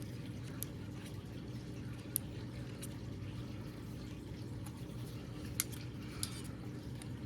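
A few sharp, separate clicks and taps from handling hard plastic sword-replica parts while a zip tie is tightened around the handle, over a steady low room hum.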